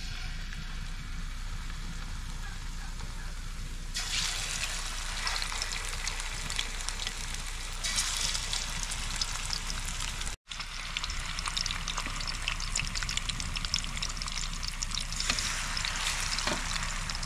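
Pieces of carp sizzling in hot oil in a wide frying pan, with a steady hiss and many small spitting pops. The sizzle swells each time another piece is laid in, about 4 and 8 seconds in and again near the end.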